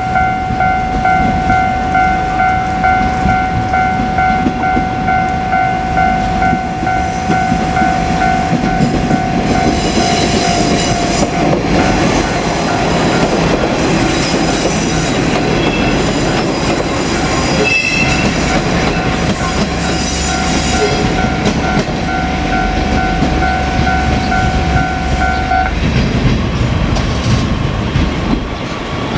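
Japanese level-crossing warning bell ringing in a steady repeating pattern while a JR Kyushu KiHa 47 diesel railcar runs over the crossing, its wheels clattering over the rail joints. The bell stops near the end while the railcar's running sound carries on.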